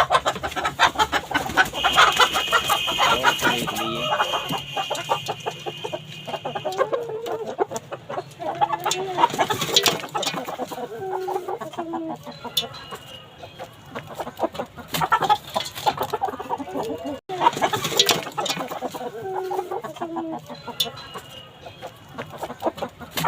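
A large flock of free-range native chickens clucking continuously, with many short overlapping calls and dense clicking and tapping throughout.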